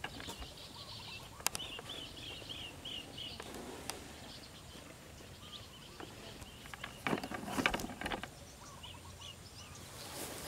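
Birds calling: a quick run of repeated high chirps about two seconds in, and a few scattered chirps later. A short burst of rustling noise, the loudest sound, comes about seven seconds in.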